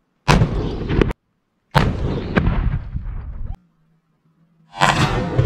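1898 3.2-inch bag-loaded field cannon firing: two booms, each with a sharp crack followed by rumble and cut off short, then a third loud boom starting near the end.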